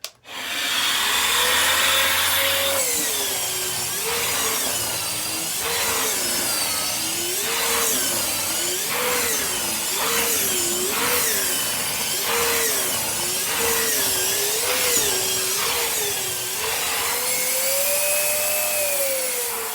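Central vacuum running through a Dyson Tangle-free Turbo, an air-driven turbine floor tool, as it is pushed back and forth. Its pitch rises and falls with each stroke, about a dozen strokes a little over a second apart, and the suction starts and stops sharply.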